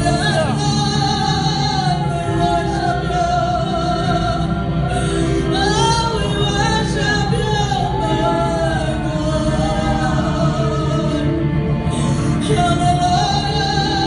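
Live music: a woman sings into a microphone over an amplified electric guitar, her voice held in long wavering notes.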